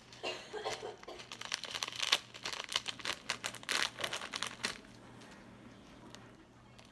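Irregular crinkling and crackling from hands handling the emptied plastic bead bag and the beaded slime, dying away about five seconds in.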